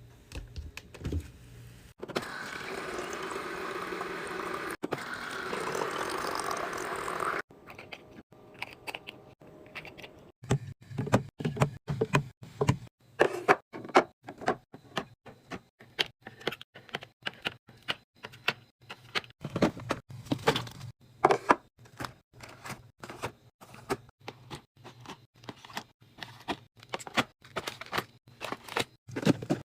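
Liquid pouring steadily for about five seconds, then a long run of quick clicks, taps and knocks: containers, lids and packaged food being handled and set down while restocking a fridge.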